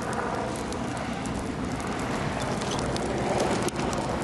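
Dry grass and brush burning, with many sharp crackles and pops over a steady rushing noise.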